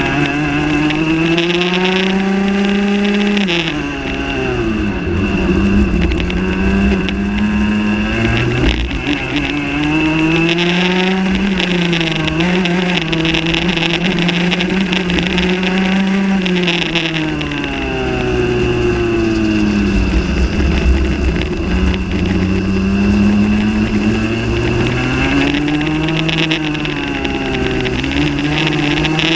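Rotax Max 125 cc two-stroke kart engine, heard onboard at racing speed. Its pitch climbs steadily and drops sharply several times as it slows for corners, with a steady high whine above it.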